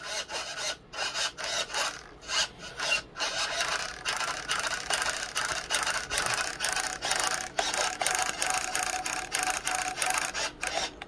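20 kg digital steering servo driving an RC boat's rudder back and forth, each sweep a short raspy buzz of motor and gears, repeated many times in quick succession.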